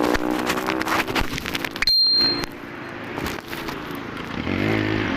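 Motorcycle engine running while riding, with wind buffeting the microphone; the sound cuts off abruptly about two seconds in and the engine comes back weaker.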